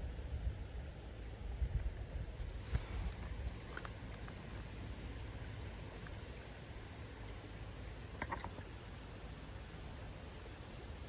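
Steady high-pitched insect trilling, likely crickets, over a low rumble, with a few faint clicks about three and eight seconds in.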